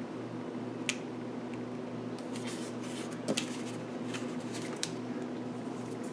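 Double-sided score tape pulled off its roll and pressed down along paper: light rustling with a few sharp small clicks, one about a second in and another just past three seconds, over a steady low hum.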